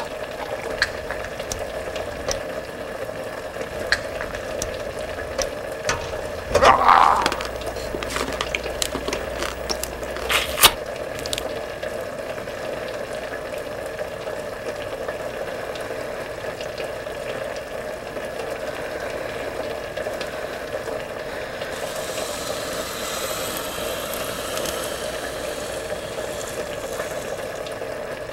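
Pot of liquid boiling steadily on a stove, with scattered small clicks and a brief louder noise about seven seconds in; a higher hiss joins in over the last few seconds.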